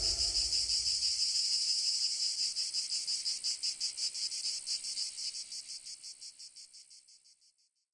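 Insects chirping in a high, rapidly pulsing trill, fading out over the last few seconds.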